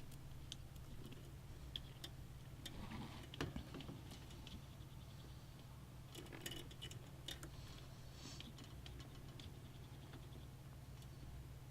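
Faint, scattered small clicks and light rustling of hands handling small computer parts and connectors, over a steady low hum.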